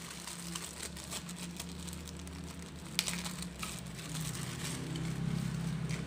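Hands handling the plastic-bagged siren and loudspeaker kit, with light plastic rustling and small clicks and one sharper click about three seconds in, over a steady low electrical hum. The siren itself is not sounding.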